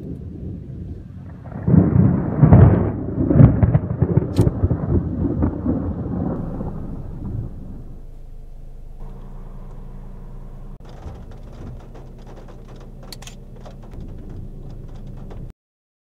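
Thunder rumbling loudly for several seconds after a lightning strike, rolling in waves with a sharp crack partway through. Then a quieter stretch of rain pattering over a steady low hum, which cuts off abruptly near the end.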